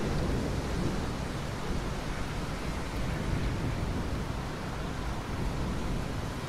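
Steady rain falling, an even, dense hiss, with the tail of a low thunder rumble dying away at the start.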